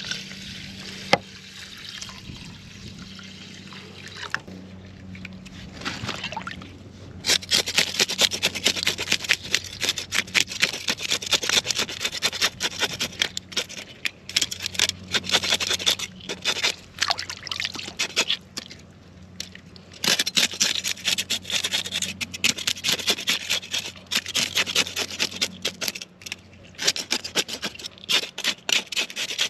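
Rapid, repeated scraping as a bluegill is scaled, coming in runs with short breaks and starting about seven seconds in after a quieter stretch.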